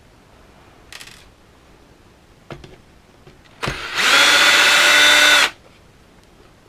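Small cordless power driver spinning up and running for about two seconds at a steady pitch, then stopping abruptly. A couple of faint clicks come before it.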